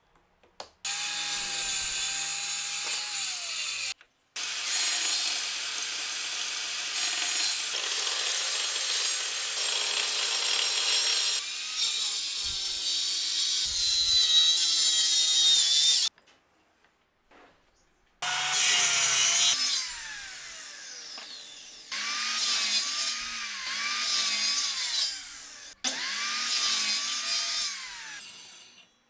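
Electric power saw cutting wood in several passes, about five in all, with short pauses between them. The motor pitch sags under load during each cut and falls as the blade winds down after each one.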